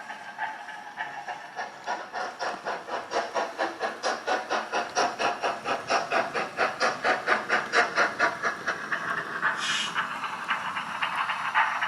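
Model steam locomotive's digital sound decoder playing recorded LMS Black 5 exhaust beats: a regular, rapid chuffing over hiss as the engine runs, getting a little louder. A short, sharp high hiss cuts in just before ten seconds in.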